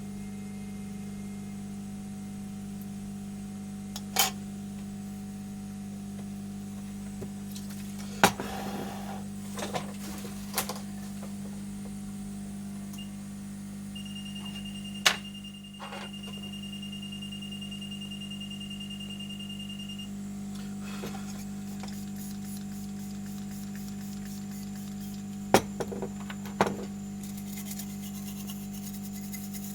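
Steady electrical hum of repair-bench equipment, with a handful of sharp clicks and taps from tools being handled. A single steady high-pitched tone is held for about six seconds midway.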